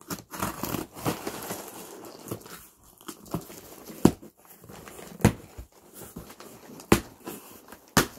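Folding knife slitting the packing tape on a cardboard shipping box: continuous scraping and crackling of tape and cardboard, with four sharp knocks in the second half.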